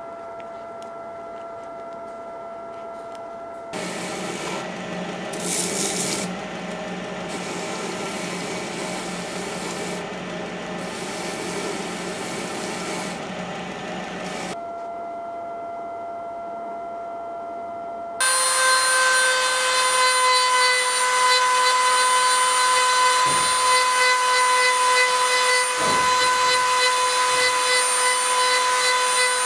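Belt grinder running with a steady hum, with a rough grinding noise from about four seconds in to about the middle as a metal pommel is pressed against its wheel. About two-thirds of the way through, a handheld rotary tool takes over with a louder, high, steady whine as it works the metal, dipping briefly twice under load.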